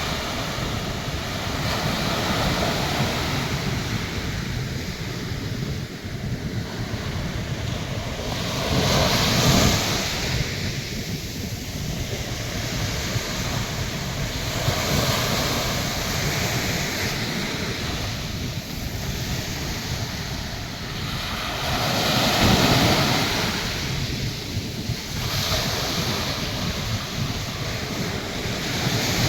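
Atlantic Ocean surf: waves breaking and washing in continuously, with louder crashes about a third of the way in and again about three quarters through. Wind buffets the microphone, adding a low rumble.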